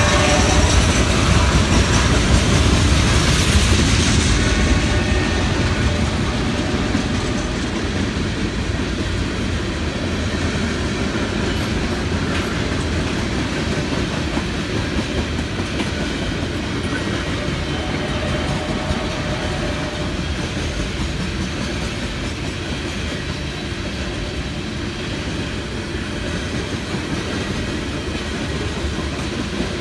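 CSX coal train's open-top coal cars rolling past: steady wheel-on-rail noise with clickety-clack over the rail joints, louder in the first few seconds and then settling to an even level.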